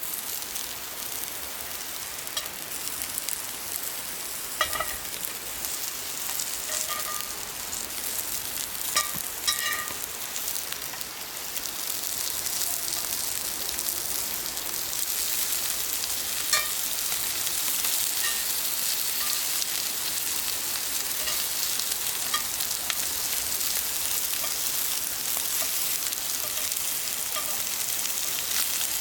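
Food frying in a pan with a steady sizzle that grows louder about twelve seconds in, with a few light metallic clinks, like a utensil striking the pan.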